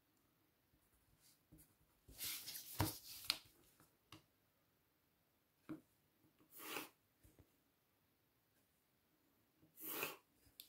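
Pencil and plastic set squares scratching and sliding on drawing paper. There is a scratchy spell about two seconds in with a few small clicks, then single short scrapes near the middle and near the end.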